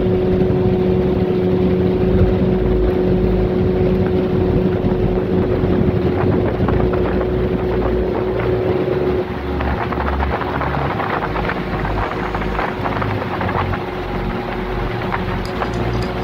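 Motorboat engine running with a steady hum while wind buffets the microphone. About nine seconds in, the hum drops away and rougher, crackling wind noise takes over.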